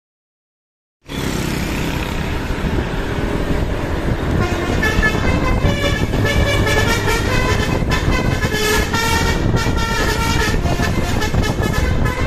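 Basuri 'telolet' multi-tone bus horn playing a quick tune of changing notes, coming in about four and a half seconds in. Under it is a steady low rumble of the bus engine and street noise, which starts suddenly about a second in.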